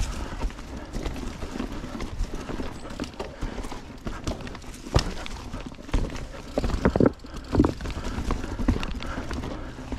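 Mountain bike rolling along a dirt trail, the frame and drivetrain clattering with irregular knocks over rough ground; the sharpest knocks come about five seconds in and between six and eight seconds.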